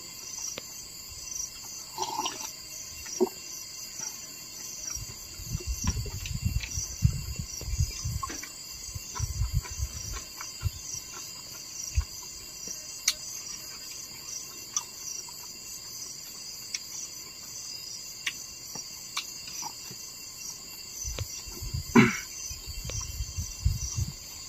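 Insects chirping in a steady, high, rhythmically pulsing chorus. A few seconds in and again near the end come stretches of low rumbling, with scattered clicks and one sharp knock near the end.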